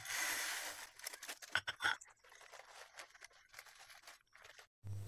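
Crushed dry instant noodles and crushed corn-snack crumbs poured from crinkly plastic packets onto a ceramic plate: a short rush of falling crumbs at the start, then scattered light crackles of the packet.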